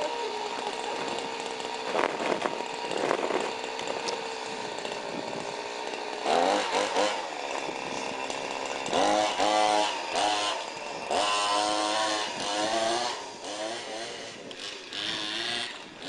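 Small two-stroke engine of a 1/5-scale Baja RC buggy, idling steadily at first. From about six seconds in it is revved hard in several bursts, the pitch climbing with each burst as the buggy accelerates.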